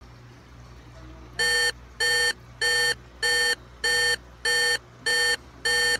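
Electronic alarm beeping: eight identical beeps, each about a third of a second long, coming evenly at a bit over one and a half per second and starting about a second and a half in, over a low steady hum.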